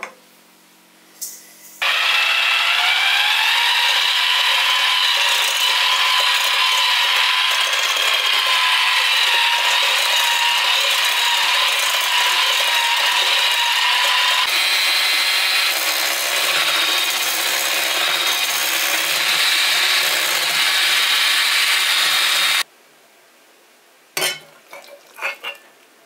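Small electric motor running steadily with a high whine, starting about two seconds in and cutting off suddenly near the end. A few clicks and knocks follow it.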